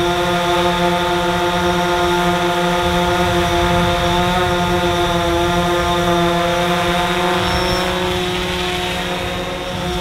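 DJI Phantom 4 quadcopter hovering close by, its four propellers giving a steady buzzing whine of several held pitches. It dips a little in loudness just before the end.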